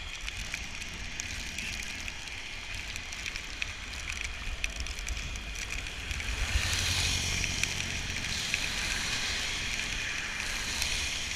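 Steady hiss of rain and wet road under a moving bicycle, with wind rumbling on the microphone; the hiss grows louder about six and a half seconds in.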